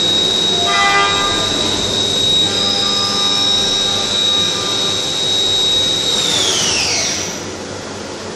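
Leadwell V-50L CNC machining center running, its spindle giving a steady high whine over a constant machine noise. About six seconds in the whine falls away in pitch as the spindle winds down, and the overall noise drops a little.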